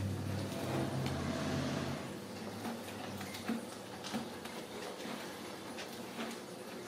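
Light scuffling and a few soft taps of kittens playing on cardboard scratcher pads and a tile floor, over a steady low hum that is strongest in the first couple of seconds.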